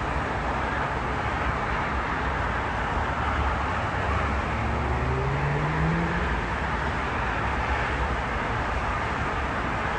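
Steady road and engine noise of a car driving on an expressway, heard from inside the car, with a brief rising tone about halfway through.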